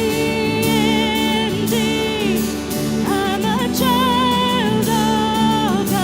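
Contemporary worship band music: long held sung notes with vibrato over sustained keyboard and guitar chords.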